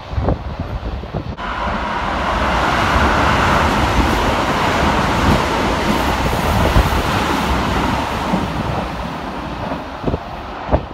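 Express train passing through the station without stopping at high speed (about 110–120 km/h): a loud rush of wheel and air noise that sets in abruptly about a second in, holds loudest through the middle, and fades toward the end.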